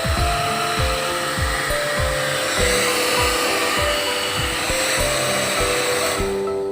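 Hair dryer blowing with a steady rushing sound over background music with a steady beat; the rushing drops out about six seconds in.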